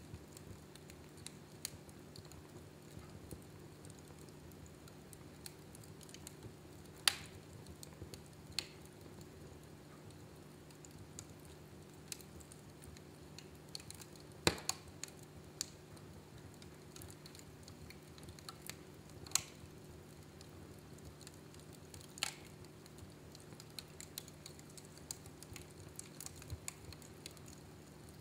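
Wood fire crackling in a fireplace: irregular small snaps and pops over a faint steady hum, with a few louder pops, the strongest about halfway through.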